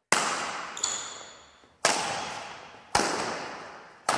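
Intro sound effects for a channel logo animation: four sharp cinematic impact hits, each fading out slowly over a second or so.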